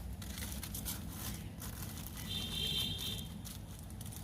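Pressed green banana slices frying in hot oil, with scattered crackling and sizzling over a low steady hum. A little after two seconds in, a brief high-pitched tone sounds for about a second.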